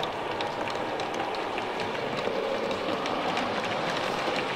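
H0 scale model freight wagons rolling along the track, a steady rolling noise with regular light clicks as the wheels pass over rail joints.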